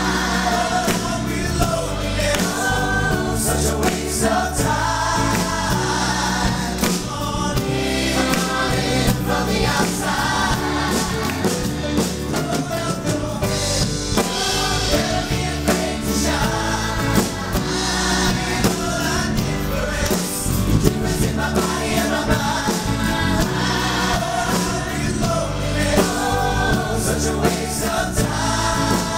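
A large ensemble of stage singers singing a song together in chorus, backed by a live band of drums, bass and guitar.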